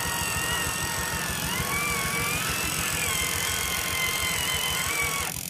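Electric motor and gears of an RC 6x6 timber truck whining, the pitch rising and falling smoothly with the throttle, over a steady low rumble of drivetrain and tyres.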